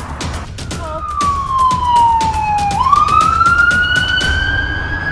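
Emergency vehicle siren wailing: one tone falling slowly in pitch, then sweeping back up from a little before the middle, over a scatter of short sharp clicks.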